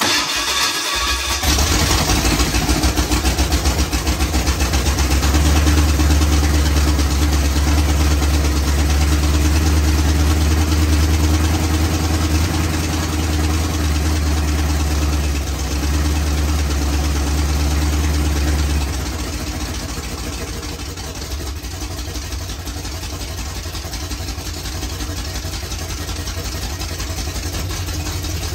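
A freshly rebuilt Ford 351M V8 in a 1977 F-150, with its electric fuel pump switched off, cranks for about a second, catches and runs loudly. About two-thirds of the way through it settles to a quieter idle.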